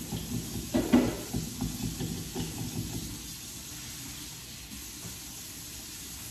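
Water running from a kitchen tap into a sink to make dishwater, a steady hiss with a clatter of dishes about a second in.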